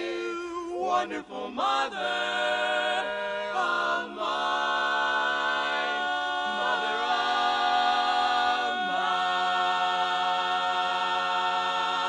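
Male barbershop quartet singing a cappella in four-part close harmony, moving through a few short phrases and then holding one long ringing chord over the last few seconds.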